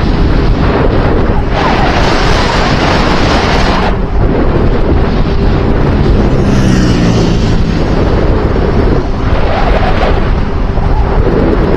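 Loud wind buffeting on the microphone, swelling and easing every few seconds, with a faint low hum under it in the middle.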